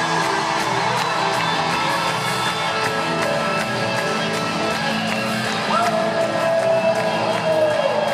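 Live rock band playing in an arena, heard from the audience, with the crowd cheering underneath. In the second half a singer holds one long note that slides down at the end.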